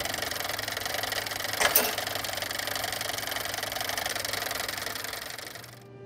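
Clockwork gear mechanism running with a fast, dense mechanical clatter, with one sharp hit about a second and a half in; the clatter fades out near the end.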